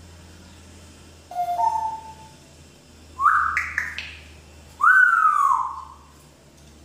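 African grey parrot whistling three separate calls: a short two-note whistle stepping up, then quick rising whistles with sharp clicks, then a longer whistle that rises and slides back down. A low steady hum sits underneath.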